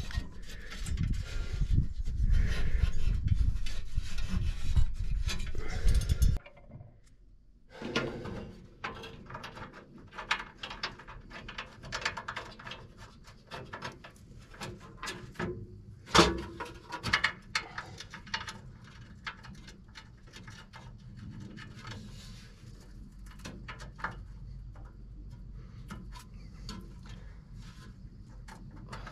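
Close scraping and rubbing against the camera's microphone, a loud low rumble that cuts off suddenly about six seconds in. Then scattered light metal clicks and knocks as a steel side cover is handled and fitted onto the bulldozer's engine compartment, with one sharp knock about sixteen seconds in.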